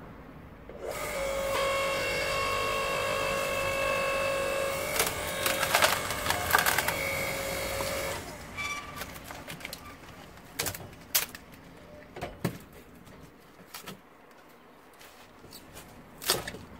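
AL-KO KHS 5204 electric hydraulic log splitter: the motor starts about a second in and runs with a steady whine as the ram drives a log onto the wedge. Sharp cracks of the wood splitting come about five to seven seconds in, and the motor stops about eight seconds in. Then scattered knocks and clatter of the split pieces being handled, with a loud knock near the end.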